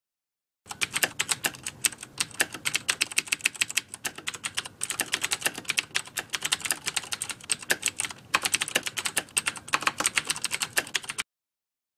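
Rapid keyboard typing clicks, several keystrokes a second, used as a sound effect while the title text types itself out. The typing starts under a second in, pauses briefly near the middle and stops abruptly near the end.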